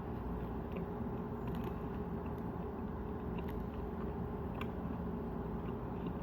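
A person chewing a chocolate-dipped granola bar with nuts and seeds: a few faint, scattered crunches over a steady background hum.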